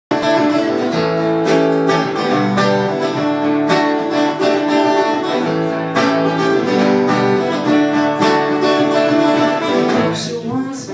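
Acoustic guitars strumming chords together in a steady rhythm, a live instrumental passage.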